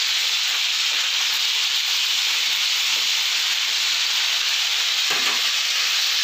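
Chicken pieces and pork chops sizzling steadily in hot oil in a frying pan, with one brief knock about five seconds in.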